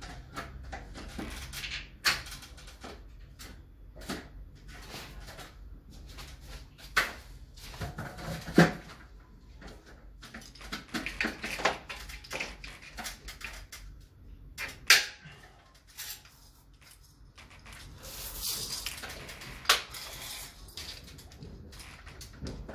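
Scattered knocks and clicks with some rustling, several of them sharp, from a workman fitting a roller blind's housing and brackets at the top of a window.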